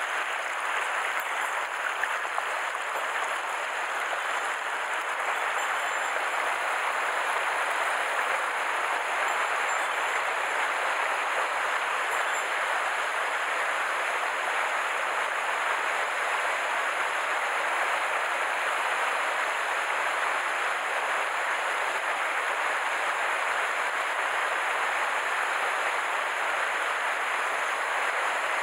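Mountain stream water rushing over rocks in a shallow riffle: a steady, unbroken wash.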